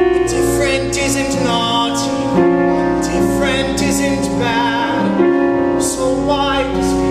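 Musical-theatre singing with piano accompaniment: voices holding sustained notes with vibrato over the piano.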